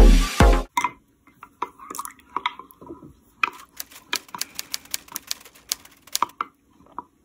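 Electronic dance music with a beat cuts off in the first second. Then a spoon stirs a milky drink in a ceramic mug, with many light, irregular clinks and taps against the mug and nearby jars.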